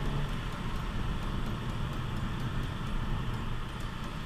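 Cabin noise in a SEAT Leon Cupra 300 on the move, from its 2.0-litre turbocharged four-cylinder and the tyres on the road. The engine's steady note fades in the first moment as the throttle eases, leaving an even rumble of road and engine noise.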